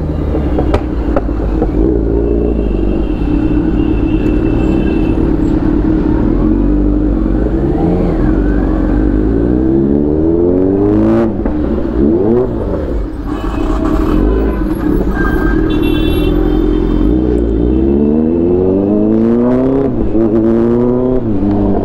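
Motorcycle engine running in slow traffic, rising in pitch twice as it accelerates away. Vehicle horns sound twice in the traffic.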